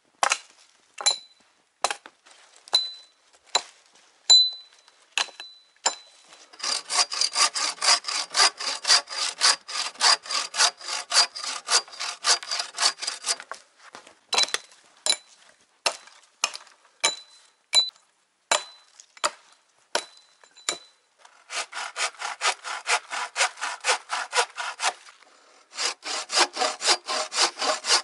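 Hand bow saw with a 60 cm blade cutting a log, in runs of quick, even rasping strokes. Between the runs come single sharp strokes about a second apart, each with a brief metallic ring.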